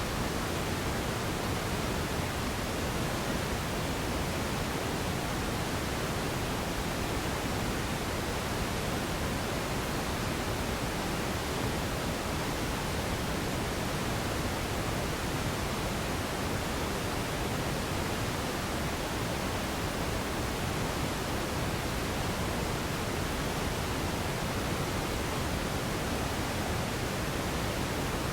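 Steady radio static: an even hiss with no signal, speech or tones in it.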